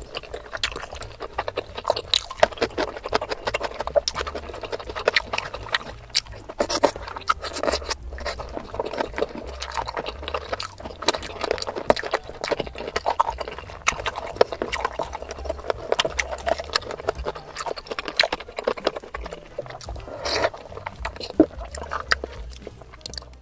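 Close-miked mouth sounds of eating meat and fufu by hand: wet chewing, lip smacks and sucking on a meat bone, a dense run of small clicks and squelches.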